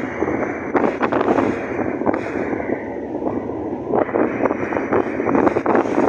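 Wind buffeting the microphone aboard a ferry under way, a dense, rough rushing that swells and eases over a few seconds.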